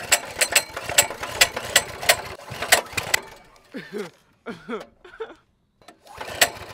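Coleman CT200U mini bike's 200cc single-cylinder engine, its speed governor removed, being pull-started. It catches briefly and fires in sharp pops about three a second, then dies out about three seconds in. Near the end another pull begins with a fresh pop.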